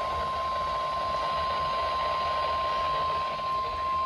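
NOAA Weather Radio 1050 Hz warning alert tone: one steady, unbroken high-pitched tone received over the radio with static hiss underneath, the signal that a warning, here a flash flood warning, is about to be broadcast.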